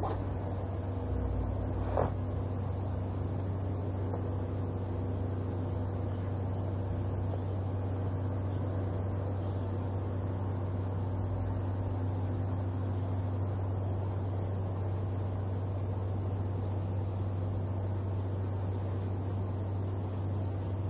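Steady low mechanical hum with one sharp click about two seconds in.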